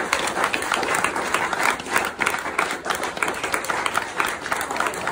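A roomful of guests clapping together in steady applause.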